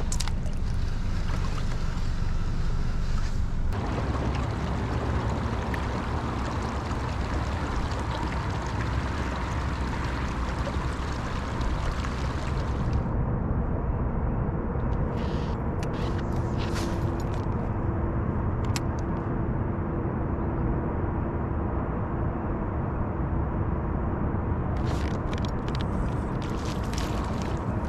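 Fishing kayak running across the water: a steady rush of wind and water with a faint, even motor whine. The high end of the rush drops away about halfway through, followed by a few short clicks.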